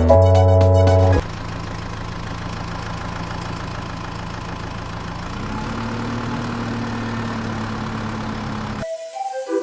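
After a second of electronic music, a vehicle engine runs at a steady idle. Its pitch steps up slightly about halfway, and it cuts off near the end.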